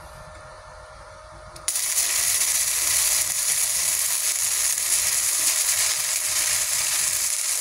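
Gasless flux-core MIG welding arc striking about two seconds in and then running steadily, throwing heavy spatter. The torch is wired to positive, the wrong polarity for gasless wire, which gives a spattery weld of small beads that do not fuse.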